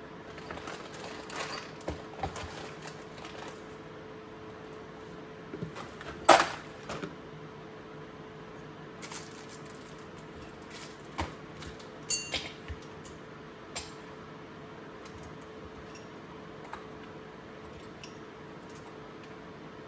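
Metal hand tools clinking and knocking as they are handled and set down, with a sharp clack about six seconds in and a short rattle of clinks around twelve seconds. A faint steady hum runs underneath.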